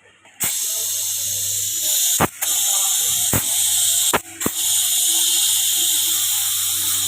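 Compressed air hissing from an air line, most likely inflating the refitted motorcycle front tyre. The hiss starts with a click about half a second in and stops briefly twice, around two and four seconds in.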